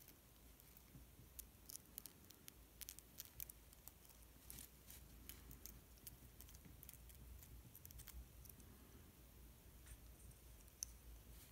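Faint, scattered small clicks and ticks as fingers handle the tiny parts of a drone camera gimbal and its flat ribbon cable.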